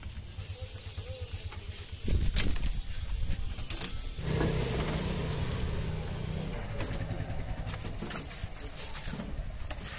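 Auto-rickshaw engine idling with a steady low pulse, with several sharp knocks and clanks as an old moped is handled on its rear seat.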